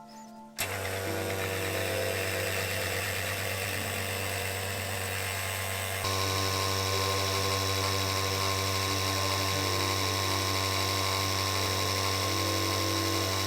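An electric motor or power tool starts abruptly and runs at a steady speed with a low hum and a hiss. Its sound turns louder and brighter about six seconds in, and it cuts off suddenly near the end.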